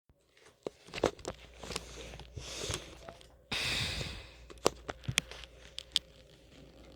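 Handling noise: a series of sharp clicks and knocks, with a short rush of hiss about three and a half seconds in, over a low steady hum.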